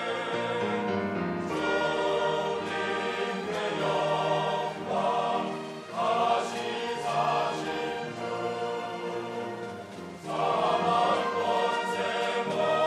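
Church choir singing a sacred anthem with accompaniment, the voices swelling, easing off briefly about three-quarters of the way through, then swelling again.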